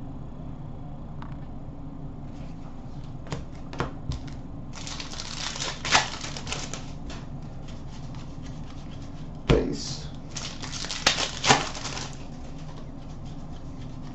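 Trading cards and a card-pack wrapper being handled: crinkling and tearing of the wrapper and cards riffled and set down, in two busy spells. There are a few sharp knocks among them.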